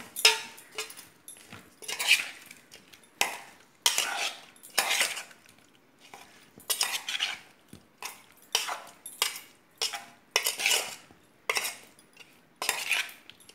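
Metal spoon scraping and clanking against the inside of a metal pot in repeated strokes, roughly one a second, while mixing boiled jackfruit pieces with spices and paste.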